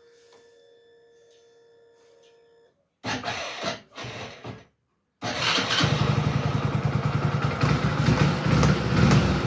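Small single-cylinder engine of a Hero HF Deluxe motorcycle, freshly rebuilt with new bearings, being cranked in two short bursts and then catching about five seconds in and running steadily, picking up slightly near the end.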